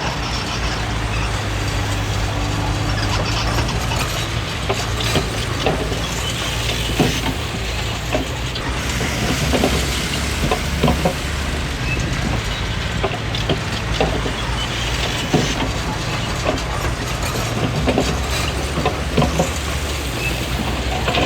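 Komatsu D20P crawler bulldozer's diesel engine running steadily, with irregular clanks and knocks from its steel tracks and blade working.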